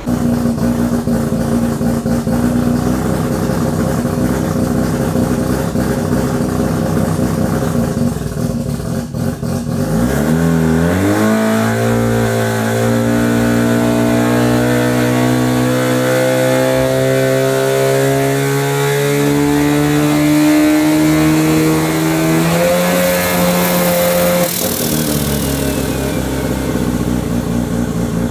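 Turbocharged 13B two-rotor rotary engine of a Toyota Starlet running on a hub dyno. It runs steadily for about ten seconds, then the revs climb in one long, slow pull under load for about twelve seconds. Near the end it drops back to a lower steady speed with a brief hiss.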